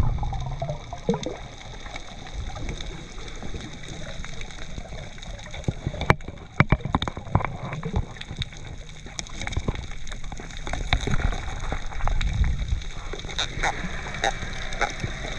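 Underwater ambience on a reef: a muffled low rumble of moving water with scattered sharp clicks and crackles, and one sharp knock about six seconds in.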